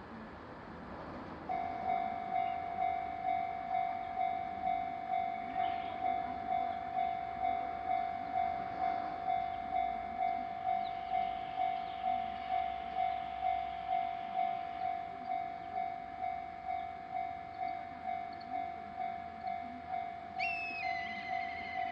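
Japanese railway level crossing alarm starting about a second and a half in, an electronic bell tone ringing evenly at about two strikes a second. A brief higher-pitched tone that steps down comes in near the end.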